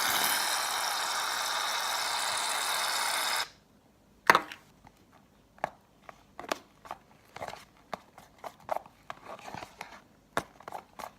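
Aerosol can of shaving cream spraying a steady hiss that stops sharply about three and a half seconds in. Then irregular clicks and taps as the glue and shaving cream mixture is stirred in a container.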